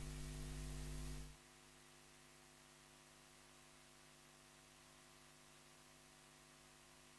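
Electrical mains hum on the microphone line, a steady low buzz, for about the first second; it cuts off suddenly, leaving near silence with only a faint trace of hum.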